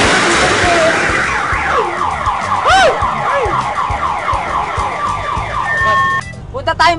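A loud noisy rush that fades over the first two seconds, then a car alarm sounding with a rapidly repeating falling tone, about three sweeps a second, which cuts off abruptly about six seconds in.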